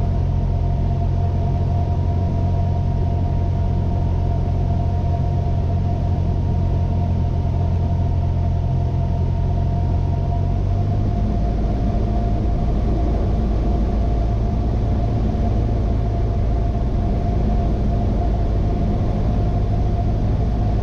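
Cessna 172N's four-cylinder Lycoming engine and propeller droning steadily in flight, heard from inside the cockpit with the rush of air over the airframe. The engine note shifts about halfway through.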